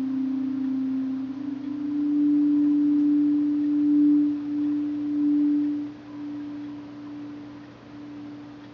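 Background drone music: two close, steady low tones held together, swelling to their loudest near the middle and dropping away after about six seconds.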